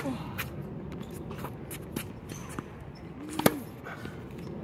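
Tennis racket striking the ball twice: a sharp pop right at the start and a louder one about three and a half seconds in, with faint ticks of bouncing balls and shoe scuffs between.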